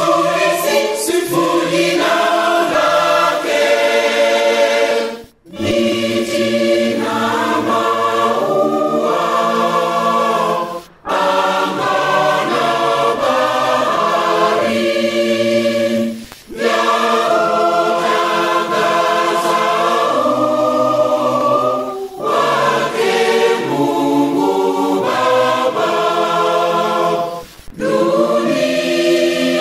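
A Lutheran church choir sings a Swahili hymn in several voice parts. The phrases are broken by short pauses roughly every five and a half seconds.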